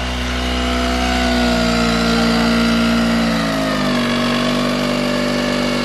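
Mercury 9.9 hp four-stroke outboard engine running fast, its revs sagging a little past halfway as it is throttled back. The engine will only keep running with the choke out or the throttle held well open, and dies at low revs, a fault the owners suspect lies in the carburettor.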